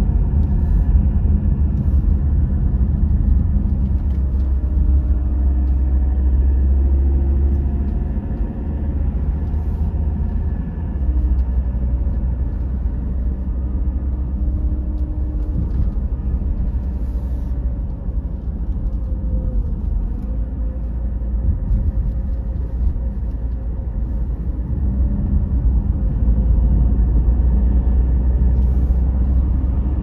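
A car being driven on an open road, heard from inside the cabin: a steady low rumble of tyres and engine that dips slightly now and then.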